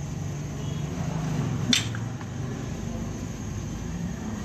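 Hands placing chopped capsicum and black olives on a pizza base in a metal tray, over a low steady background hum, with one sharp click about a second and a half in.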